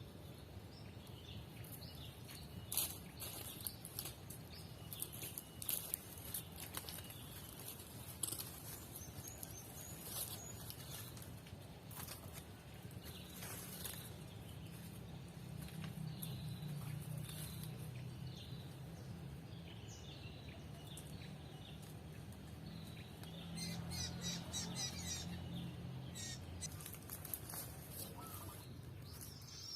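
Small birds chirping, short high calls scattered through, with a quick run of rapid high notes about three-quarters of the way in. A steady low rumble runs underneath.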